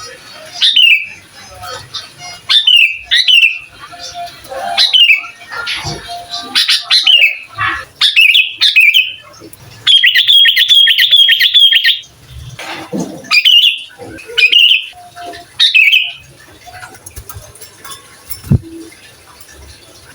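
Sooty-headed bulbul singing in a lively way: short, bright whistled phrases that slide downward, repeated every second or so, with a fast chattering run of notes about halfway through lasting some two seconds.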